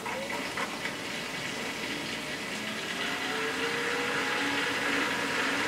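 PC watercooling pump running as water starts flowing through a newly filled loop, pushing air out of the system. A steady rushing with a faint whine that slowly rises and grows a little louder.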